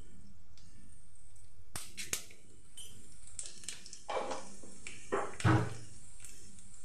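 Whole spices sizzling in hot oil in a metal kadai, with a few sharp pops about two seconds in. Louder bursts of spluttering follow as cumin seeds fry, the loudest one a little after five seconds.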